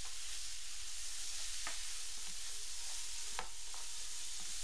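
Pearl onions and green beans sizzling in a frying pan while being stirred with a spoon, which scrapes and taps against the pan a few times.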